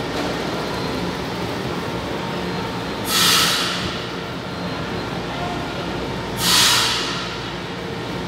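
Subway train standing at the platform, its equipment giving a steady hum, with two loud bursts of compressed-air hiss about three seconds apart, typical of the train's pneumatic brakes venting air.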